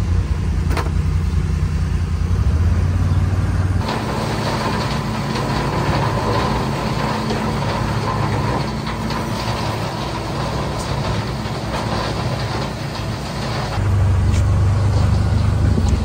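A utility vehicle's engine hums low while driving. About four seconds in, the sound switches to a tractor running a bale processor, a steady rushing whir as it shreds and blows straw bedding. Near the end the low engine hum grows loud again.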